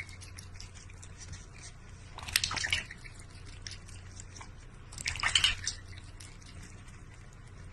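Liquid sounds: scattered small drips, with two louder half-second bursts of watery noise about two and five seconds in.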